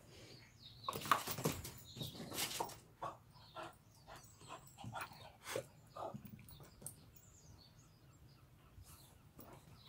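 Small dog barking in repeated short, sharp yaps at a ball, excited and waiting for it to be thrown; the barks come thick and fast in the first few seconds and thin out toward the end.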